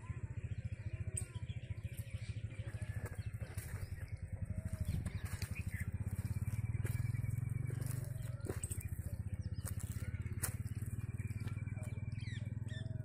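A steady low hum with a fast, even pulse, like a motor running, a little louder in the middle. Small birds chirp over it.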